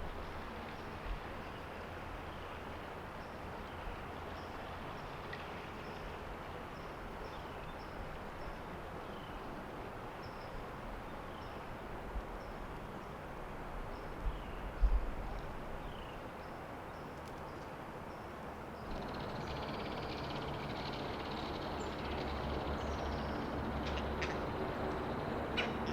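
Quiet morning woods ambience: a steady background hiss with faint small birds calling again and again. A few soft knocks, one stronger about fifteen seconds in, and the background grows louder near the end.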